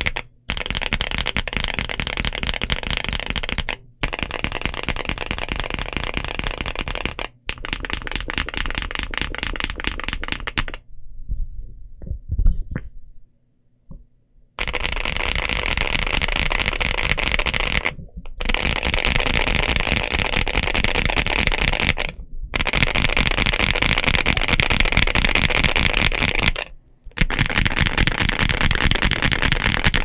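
Fast typing on a Momoka Zoo65 mechanical keyboard with Silver Bullet Morandi frankenswitches, an FR4 plate and PBT keycaps: a dense run of key clacks. It comes in stretches of several seconds with short pauses, and a quieter, sparser patch about eleven to fourteen seconds in, where one louder clack stands out.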